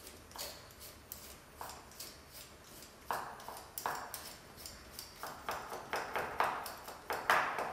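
Vegetable peeler scraping the skin off white asparagus spears in quick repeated strokes, louder from about halfway in.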